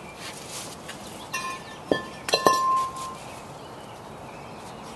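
A few sharp metallic clinks between about one and a half and two and a half seconds in, the last followed by a short clear ring, as the removed cast-iron front brake rotor of a Ford F250 is set down.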